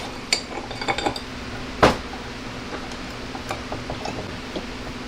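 Light metallic clinks, some with a brief high ring, then a single sharper knock about two seconds in and a few small taps: metal stock being handled and set in place, with the saw not running.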